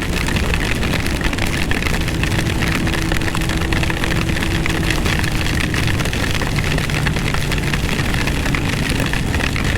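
Steady wind rush on a motorcycle helmet, with a 1998 Honda CBR600F3's inline-four engine running at an even cruise underneath.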